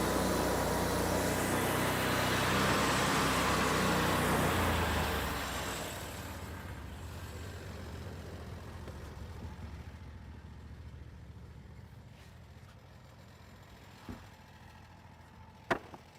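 RangeRoad RR5032 band sawmill's twin-cylinder engine running with a steady whine over it, then winding down about five seconds in and dying away over several seconds. A couple of short knocks sound near the end.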